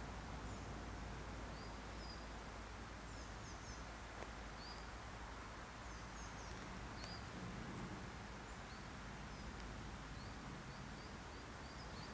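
Faint woodland ambience: small birds give short, high chirps scattered throughout, over a low steady rumble.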